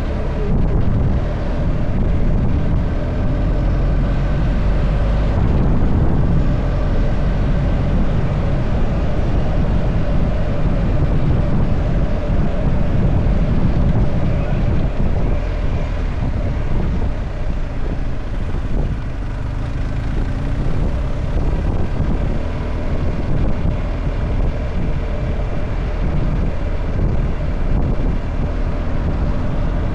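A car on the move: steady engine and road noise, mostly low-pitched, with a faint steady hum.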